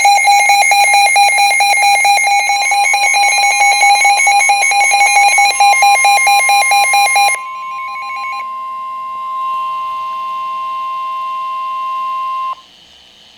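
Emergency Alert System alert tones: a loud, rapidly chopping electronic tone pattern for about seven seconds. A single steady alert tone joins it about two and a half seconds in and holds until it cuts off suddenly near the end.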